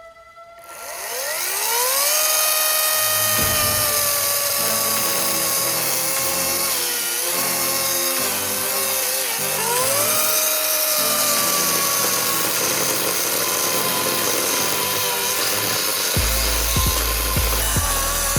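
Greenworks electric chainsaw whining up to full speed, then cutting into a dead tree trunk. Its motor pitch sags twice under load, once about seven seconds in and again near ten seconds, then rises back.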